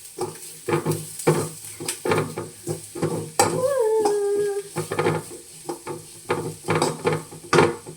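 A spoon stirring and scraping in a pan of onions and spice powder frying in oil, over a sizzle, in a run of short strokes. About halfway through comes a short pitched sound, falling and then holding for about a second.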